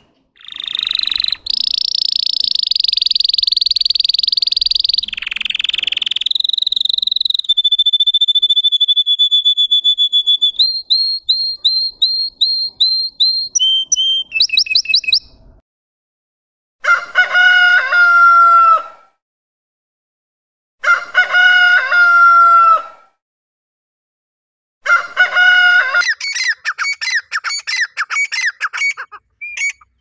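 Domestic canary singing long rolling trills and fast chopped runs of high repeated notes. About halfway through it breaks off, and a rooster crows three times, each crow about two seconds long, with short pauses between. Near the end, quick repeated high calls follow.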